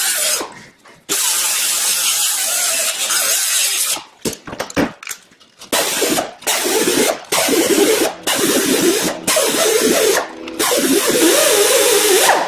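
Right-angle die grinder with an abrasive disc running against the steel hub face of a rear axle flange, cleaning off rust and scale: a high hissing whine that is cut off and restarted several times, with a lower wavering grinding tone in the second half as the disc bears on the metal.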